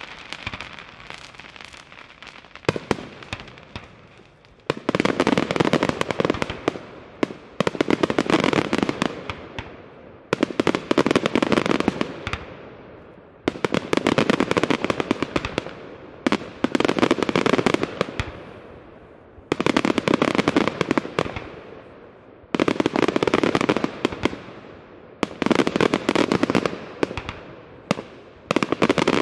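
Aerial fireworks display: shell after shell breaking into crackling stars. Each break is a dense run of rapid pops that starts suddenly and fades over a few seconds, with a new one about every three seconds from about five seconds in; before that only scattered pops.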